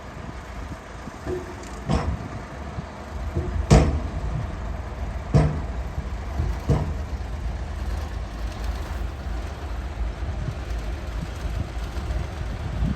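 Heavy diesel earthmoving machinery running with a steady low rumble, with four sharp clanks about a second and a half apart in the first half, the second the loudest.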